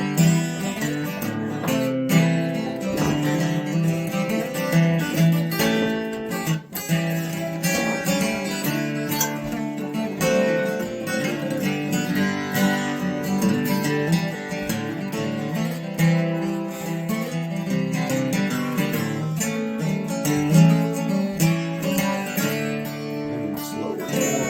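Instrumental break of a country song: strummed acoustic guitar with the band playing, no singing.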